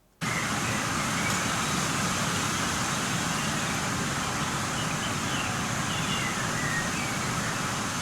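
Field recording of a 25 mph wind blowing across the microphones: a steady rushing wind noise that cuts in suddenly and buries a few faint bird calls.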